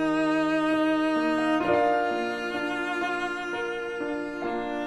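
Instrumental music, with bowed strings holding long sustained notes over a slow chord change about a second and a half in.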